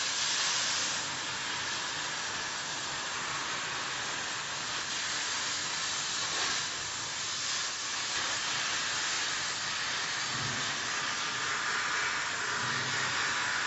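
Portable CNC oxy-fuel cutting torch hissing steadily as its jet burns a circle through steel plate.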